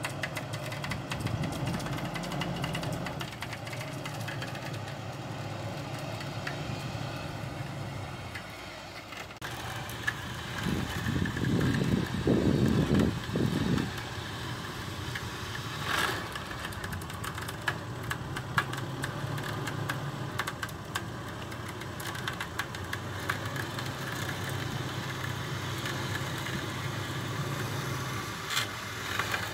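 Mitsubishi Pajero's engine running under load as the SUV is winched and crawls up a washed-out sandy track, with a louder surge of revs from about ten to fourteen seconds in.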